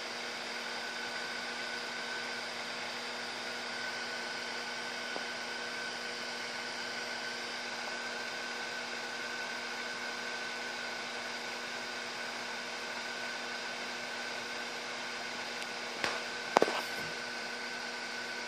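Steady hiss of a gas burner running on HHO gas and hexane, its small blue flames burning on several brass burner heads, with a steady hum and a thin high tone underneath. Two sharp clicks near the end.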